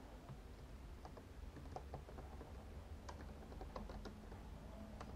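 Faint, irregular keystrokes on a computer keyboard, coming in short runs of taps.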